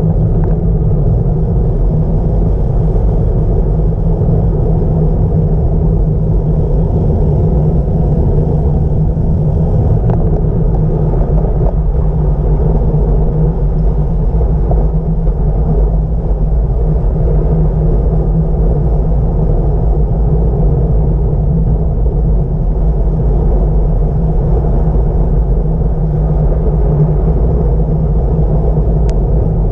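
Steady rush of wind on the microphone during a fast bicycle descent, with the tyres' rolling noise underneath.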